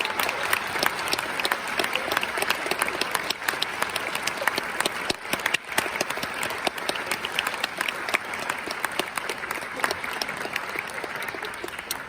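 Audience applauding, a dense patter of many hands clapping that thins and tapers off near the end.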